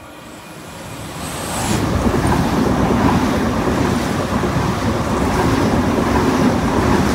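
Double-deck electric passenger train running alongside the platform. Its rumble builds over the first two seconds, then holds steady and loud as the carriages go by.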